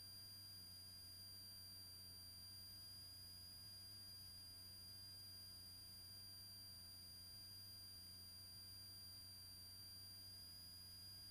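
Near silence: only a faint, steady electrical hum with a thin high-pitched whine, unchanging throughout.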